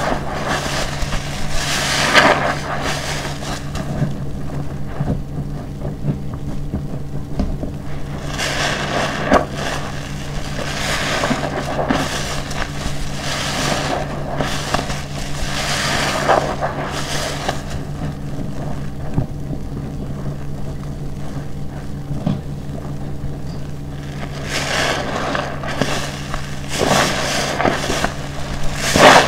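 A large car-wash sponge squeezed and kneaded by hand in a basin of thick dishwashing-detergent foam: wet squelching and crackling of lather in repeated squeezes, some louder than others. A steady low hum runs underneath.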